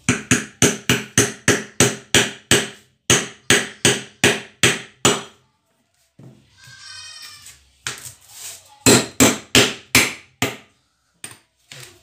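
Hammer lightly tapping a new ball bearing into its seat in a ceiling fan motor's end cover: quick, sharp metallic taps, about four a second. There is one run of about five seconds, a short squeak in the pause, and a second run of taps starting about eight seconds in.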